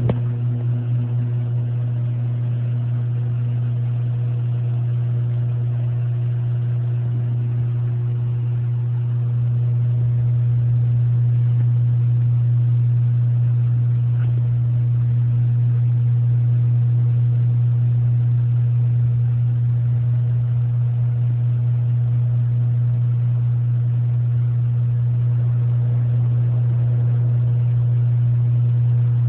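Electric drive motor of a rotisserie smoker running steadily, a constant low hum as it turns the racks.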